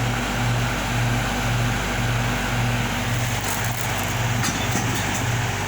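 Five-ton R410a high-efficiency air-conditioning condensing unit running on its commissioning test: steady compressor hum that throbs about twice a second under the even rush of the condenser fan. A few light clicks come in over the last couple of seconds.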